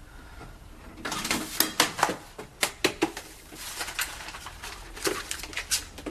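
An irregular clatter of sharp knocks and clicks, about a dozen over five seconds, starting about a second in.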